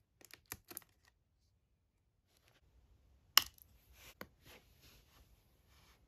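Light clicks and taps from handling small metal parts and tweezers. There is a quick run of several clicks in the first second, then one sharper click about three and a half seconds in, followed by a few softer clicks and faint rustling.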